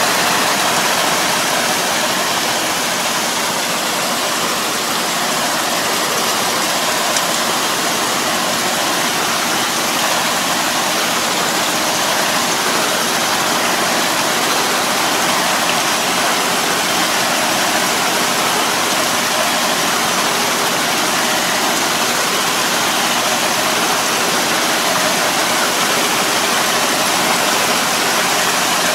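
Tractor-mounted drive harrow puddling a flooded rice paddy: its rotor churns the muddy water into a steady rushing splash, over the tractor's engine running under load.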